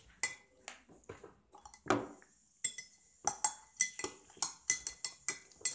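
A teaspoon stirring a drink in a cup, clinking against the sides. The clinks are irregular at first, then there is a louder knock, and from about halfway through the clinks come steadily at about four a second.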